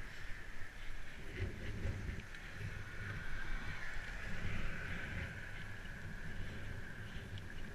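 Bicycle riding over a dirt towpath: a continuous, uneven rumble of tyres and frame on the rough path with small rattles, and a steady high hiss of wind over the camera.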